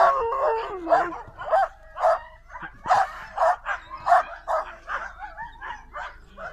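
Sled dogs, Alaskan Malamutes among them, yipping and whining in excitement, short pitched calls coming about two a second, with a longer falling whine right at the start.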